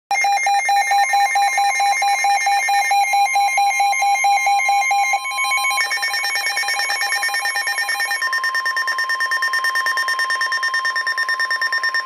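Several NOAA weather-alert radios sounding their alarms at once for a severe thunderstorm warning: overlapping rapid electronic beeping at different pitches. A steady weather-radio warning tone near 1 kHz joins about eight seconds in.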